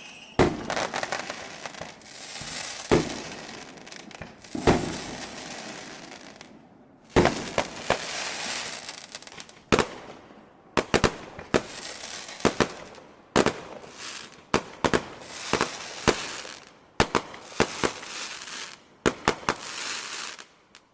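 Fireworks going off in quick succession: a dozen or more sharp bangs with a hissing, crackling wash between them, the bangs bunching closer together near the end before the sound cuts off.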